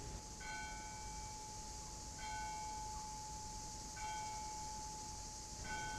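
Soft bell tones struck four times, about two seconds apart, over a steady held tone, part of a slow music score.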